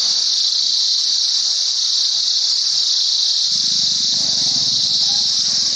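Steady high-pitched drone of an insect chorus, unbroken throughout, with a faint low rumble coming in about halfway through.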